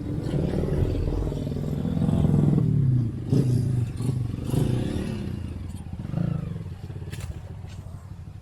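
Motorcycle engine revving up and down while being ridden over rough ground, with some clattering knocks.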